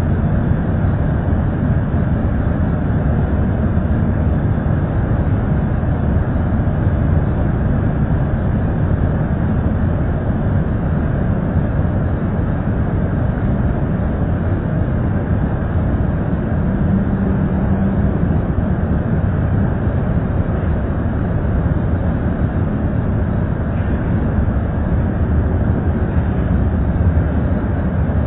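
Steady, loud mechanical rumble of an effluent treatment plant's machinery running.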